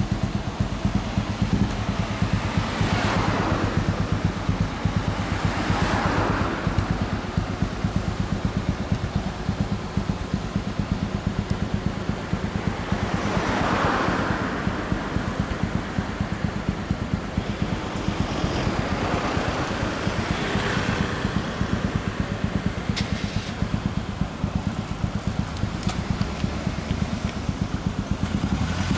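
MZ 250 single-cylinder racing motorcycle with a White House exhaust idling, a fast, even exhaust beat. Cars pass several times, each swelling and fading over a second or two.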